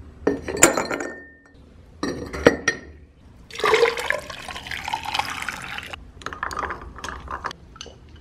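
Ice cubes clattering into a glass jar, twice. Tea is then poured over the ice for a couple of seconds, followed by a run of light clinks of ice against the glass.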